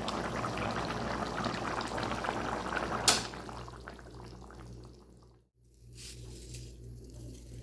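Food cooking in a pan, bubbling and crackling densely for about three seconds. A sharp click follows, then a much quieter stretch with scattered ticks and a brief dropout near the middle.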